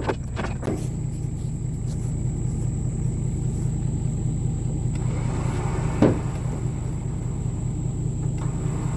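An engine idling steadily, with a single sharp knock about six seconds in.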